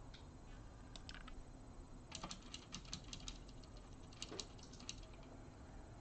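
Faint typing on a Redragon K557 mechanical keyboard with clicky blue switches. Two keystrokes come about a second in, then a quick run of clicks between about two and five seconds.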